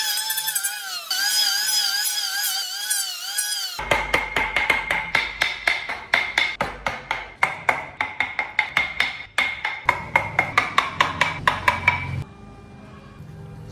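A high wavering whine for the first few seconds, then a quick, even run of sharp strokes of a hand tool working wood, about two to three a second and speeding up, with a faint ringing under them; it stops short near the end.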